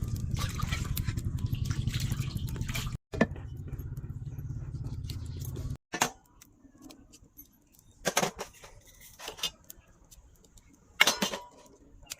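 A steady low rumble that stops abruptly about halfway through, followed by a few separate clinks of metal kitchen utensils.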